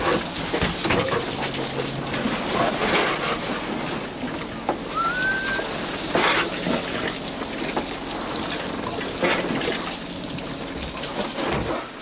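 Steady rushing, splashing water on a boat deck, with a few sharp knocks and a short rising squeak about five seconds in.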